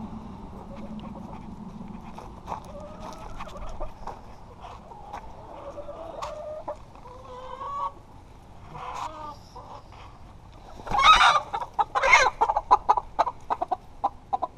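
Chicken clucking softly, then breaking into loud, rapid squawking about 11 seconds in as it is grabbed and held.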